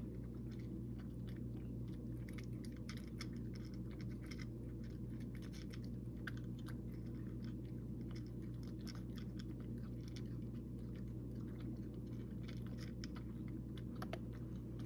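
A cat crunching dry kibble: a rapid, irregular run of crisp crunches as it chews, over a steady low hum.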